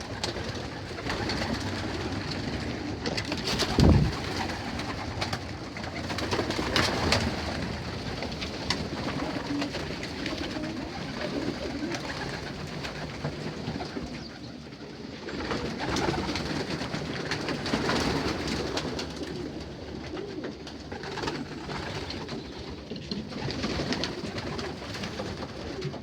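Racing pigeons cooing, with a loud thump about four seconds in.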